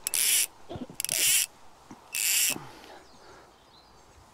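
Fly rod and line swishing through the air in false casts: three sharp whooshes about a second apart, then the casting stops.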